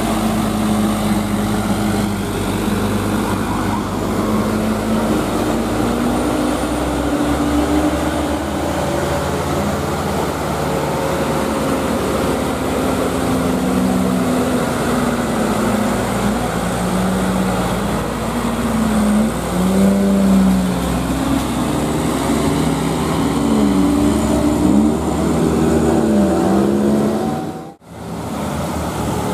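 Heavily loaded light-duty diesel dump trucks climbing a steep hill. Their engines strain under the sand load, and the pitch rises and falls again and again as they rev and change gear, over steady road-traffic noise. The sound cuts out for an instant near the end.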